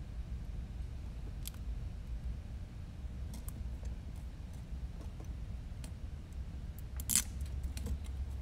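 Sparse light clicks and taps from tweezers and small drone parts being handled on a workbench, over a steady low hum. A brief, louder scrape comes a little before the end.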